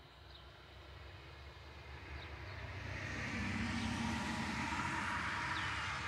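A passing vehicle: an even noise with a low rumble that swells over about three seconds and stays loud through the second half. A few faint short bird chirps sound above it.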